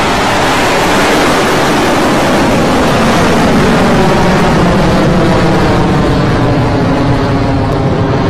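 Rocket Lab Electron rocket's first stage, nine Rutherford engines, firing just after liftoff: a loud, steady rushing rumble that grows duller toward the end as the rocket climbs away.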